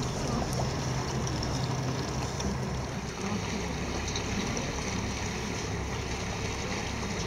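Tour boat's engine droning steadily, with water rushing along the hull.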